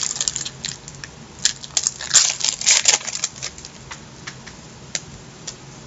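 Baseball trading cards being handled and flipped through: a cluster of paper rustles and sharp clicks in the first half, then a few light ticks.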